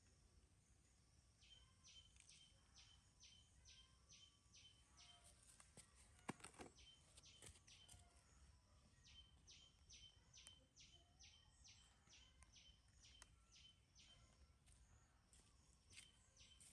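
Faint bird chirping: short high chirps repeated evenly, about two or three a second, in two long runs, with a few soft clicks between them.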